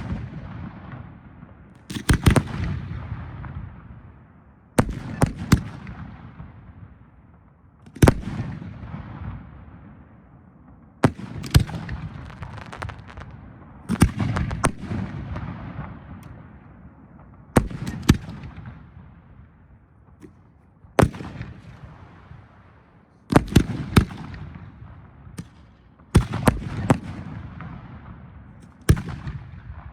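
Professional 1.3G aerial firework shells bursting one after another, about every three seconds. Each burst is a sharp bang, sometimes two or three close together, followed by a long fading rumble.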